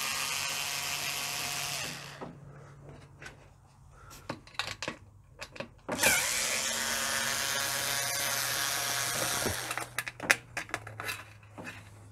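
Power drill-driver with a Torx T15 bit backing screws out of a dishwasher's lower front panel: the motor runs for about two seconds, stops, then runs again for about three and a half seconds and winds down. Small clicks and knocks of the screws and tool being handled come in the gaps between runs.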